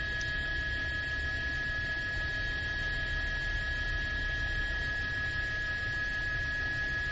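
Steady hum: a constant high whine over a low rumble, unchanging throughout.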